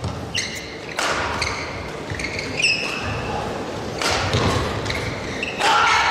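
Badminton doubles rally: rackets striking the shuttlecock several times and shoes squeaking briefly on the court mat, over the steady murmur of an arena crowd in a large hall.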